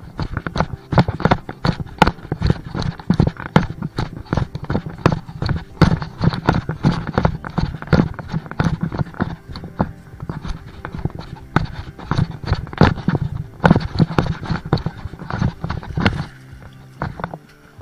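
Footsteps of a hiker walking along a trail: a fast, uneven run of steps and thumps that eases off about sixteen seconds in.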